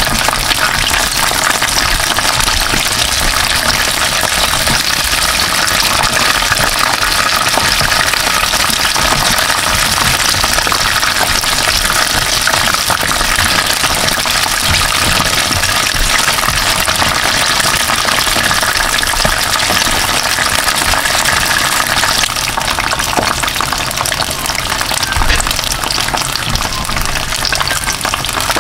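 Flour-and-cornstarch-battered chicken wings frying in hot oil in a frying pan: a steady, dense sizzle and crackle, easing a little near the end.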